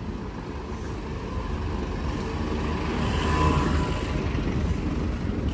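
A motor vehicle passing on the street, growing louder to its closest about three and a half seconds in and then fading, over a steady rumble of wind on the microphone from the moving bicycle.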